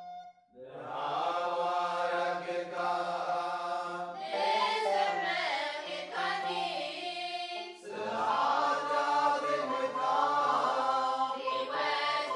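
Choir singing an Eritrean Orthodox Tewahdo Lent hymn (mezmur) in Tigrinya, coming in about half a second in and carrying three long phrases, with a low steady note held underneath.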